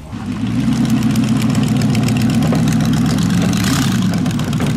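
Supercharged hot-rod engine of a rat rod pickup idling loudly and steadily, coming in suddenly at the start.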